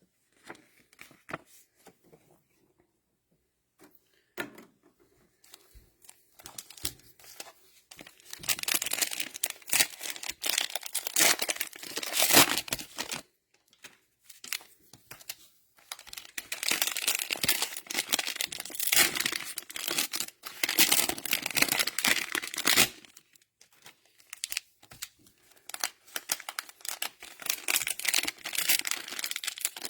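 Cellophane wrapping on trading-card packs crinkling and tearing while being handled and opened, in stretches of several seconds with short pauses between them, after a few scattered clicks at the start.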